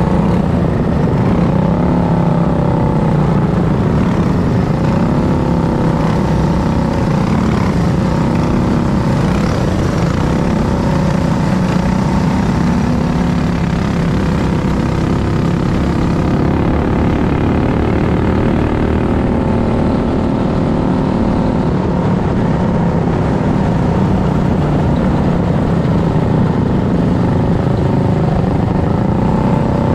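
Racing kart engine running hard at race speed, heard close up from on board; its pitch dips and rises again several times as it backs off for the turns and accelerates down the straights.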